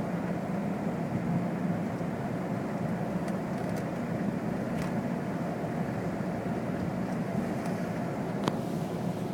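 A vehicle moving through snow: steady engine and road noise with a low hum, and a couple of faint ticks.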